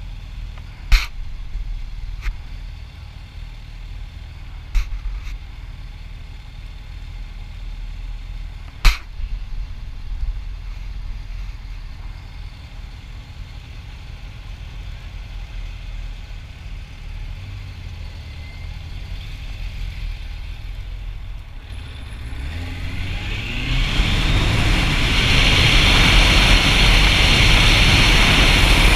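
Motorcycle engine running low and steady, with a few sharp knocks in the first ten seconds. About 22 seconds in, the engine pitch rises as it speeds up, and loud wind rush on the microphone then covers everything.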